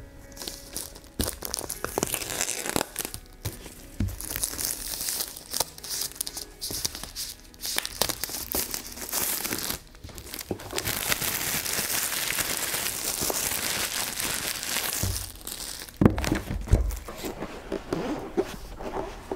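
Clear plastic shrink wrap crinkling and tearing as it is peeled off a laptop box, close to the microphone. There are a few dull knocks of the cardboard box on the table, the loudest about three-quarters of the way through.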